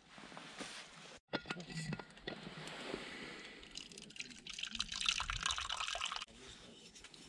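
A drink poured from a stainless steel vacuum flask into a plastic cup, a splashing, trickling pour that grows louder and then stops suddenly about six seconds in.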